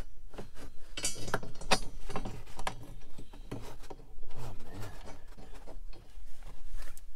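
Scattered metal clicks and knocks with rubbing as bolts are turned in finger-tight through a steel seat mounting bracket into the car's floor, hands brushing over the carpet.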